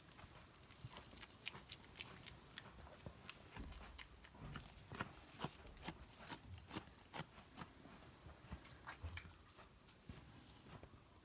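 Goats' hooves clicking and tapping irregularly on a hard pen floor as they shift about, over a faint low rumble.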